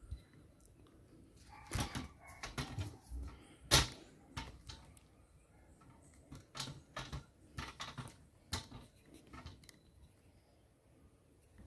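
Hand pruning shears snipping through the leafy stems of a low hedge: a series of irregular sharp clicks and crunches, the loudest about four seconds in.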